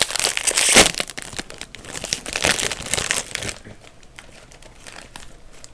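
Plastic snack bag of Cheetos Crunchy crinkling as it is handled and opened. The crinkling is loudest for the first three and a half seconds, with one sharp peak a little under a second in, then thins to fainter rustles.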